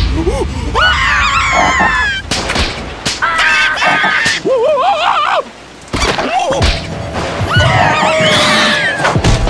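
Cartoon soundtrack: high, squeaky wordless cries and wails from the animated larva characters over music, in several separate outbursts, with a few sharp hit effects between them.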